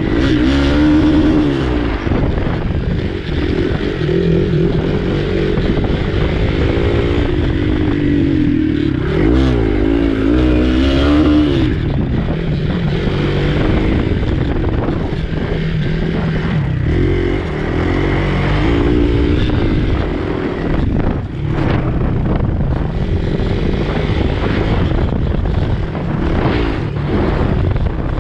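Motorcycle engine ridden hard over a dirt race course, its pitch rising and falling again and again as the throttle opens and closes, with frequent sharp knocks and rattles over the rough ground.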